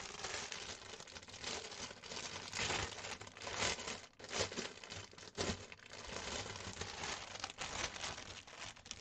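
Clear plastic bag of a cross stitch kit crinkling and rustling irregularly as it is handled and unpacked.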